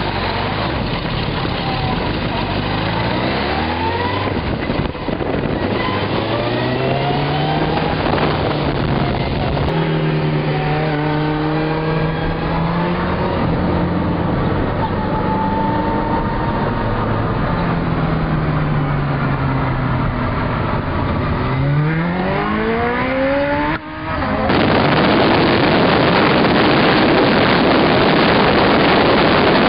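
Suzuki GSX-R1000 inline-four engine pulling through the gears: its pitch climbs, drops at each shift and climbs again, with a sharp rev rise just before a break about 24 seconds in. After that a steady, loud rush of wind over the microphone at speed drowns out the engine.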